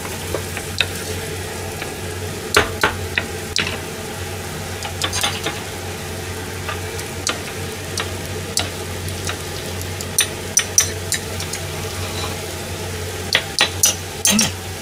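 A wooden spatula scrapes and knocks against a frying pan as a tomato, bean and minced-meat sauce is stirred, in scattered clicks. Under it the sauce simmers steadily, over a constant low hum.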